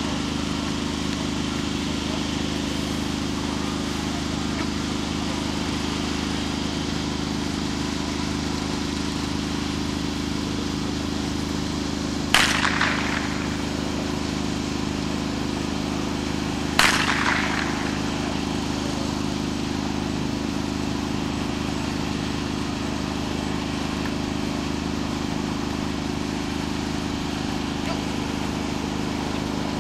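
Two sharp blank-pistol shots about four and a half seconds apart, each ringing out briefly: the gunfire test fired while the dog heels in the obedience part of a BST. A steady low hum runs underneath.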